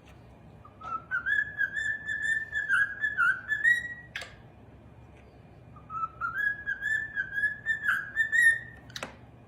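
Parrot whistling two drawn-out phrases, each a few seconds long, slightly rising then held with quick warbling notes. Sharp clicks come between the phrases.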